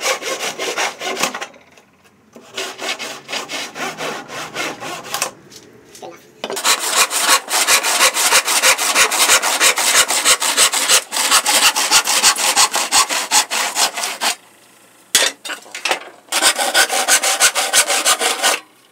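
Handsaw cutting through a wooden board with fast, even back-and-forth strokes, stopping briefly a few times before carrying on.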